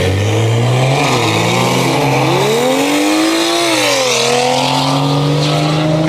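BMW E90's N55 turbocharged straight-six with a catless VRSF downpipe, accelerating hard as it pulls away, heard from a car alongside. Its note climbs, drops sharply about four seconds in, then holds steady.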